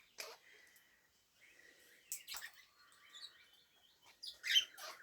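Birds calling in short, high chirps, a few scattered calls and then a louder cluster about four and a half seconds in.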